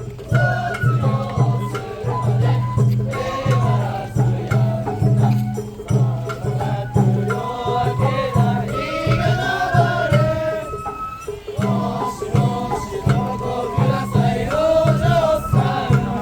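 Japanese festival hayashi music: drums keep a steady, even beat under a wavering high melody line.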